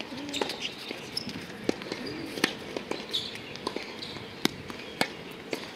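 Tennis ball struck by rackets and bouncing on a hard court during a rally: a string of sharp pops a second or so apart, with the players' footsteps on the court.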